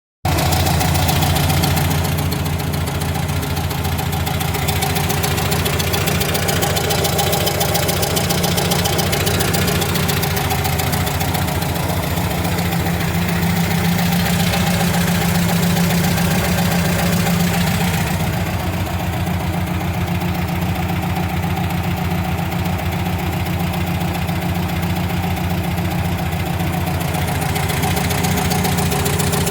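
The air-cooled 1600 flat-four engine of a 1977 VW Brasília idling steadily with a rapid knocking. The knock is a valve tapping on one cylinder bank, which at times sounds like a connecting-rod knock.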